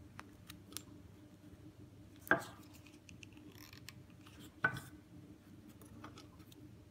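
Small ticks and handling sounds of hands working ribbon, pins and glue, with two sharp clicks about two and a half seconds apart.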